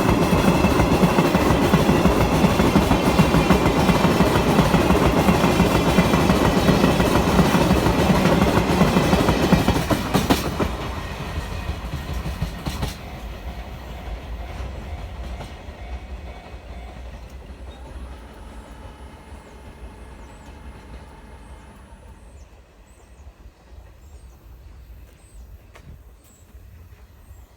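Freight train cars passing close by at a level crossing, their wheels clattering over the rail joints. The loud passing stops abruptly about ten seconds in as the last car clears, and the sound then fades away.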